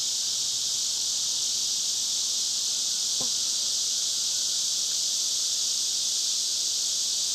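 Steady high-pitched chorus of katydids, an unbroken shrill buzz, with one faint tap about three seconds in.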